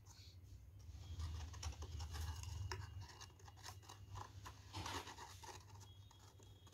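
Card and paper rustling and scraping, with scattered faint taps, as the flaps of a paper explosion box are folded up and its glitter-paper lid is fitted on.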